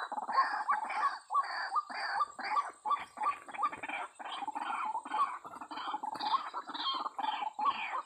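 White-breasted waterhens calling: a loud, harsh, repeated "kru-ak" about twice a second, unbroken.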